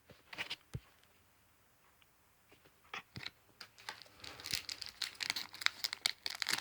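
Foil booster-pack wrapper crinkling and tearing as a trading-card pack is handled and opened, with a few light clicks early on and denser crackling from about four seconds in.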